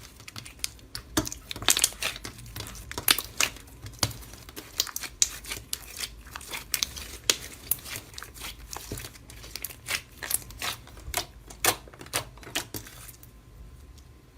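Slime being squeezed and poked by hand, a dense run of sharp crackles and little pops that stops near the end.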